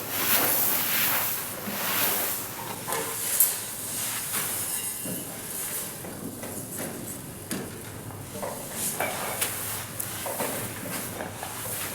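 Grain rustling and hissing in irregular surges, with a few sharp clicks, as the 3 m screw auger of a Vikhr-2000U grain-heap aeration fan is twisted down into a grain pile.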